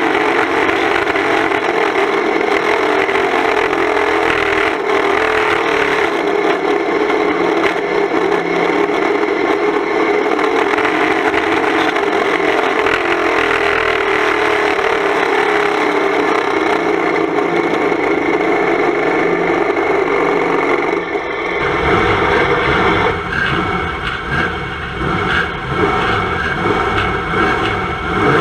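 Banger-racing Volvo 240 estate's engine running hard, heard inside the stripped-out cabin as a loud, steady rasping drone with rattle. About three quarters of the way through it drops to lower, uneven running with more rumble as the car slows after the chequered flag.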